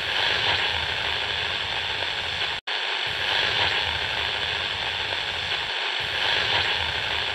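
Steady hissing crackle of an old-film static sound effect, cutting out for an instant about two and a half seconds in.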